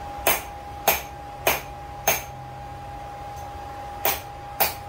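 Hand hammer tapping a hot, thin steel disc over a ring on the anvil, dishing it into a small cup: four ringing strikes about half a second apart, a pause of about two seconds, then two more near the end. A steady hum with a constant tone runs underneath.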